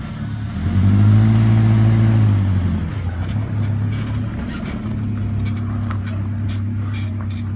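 Pickup truck engine revving up as the truck pulls away towing a boat on its trailer, easing off after about two seconds and then running steadily as it drives on. A few faint clicks come in the second half.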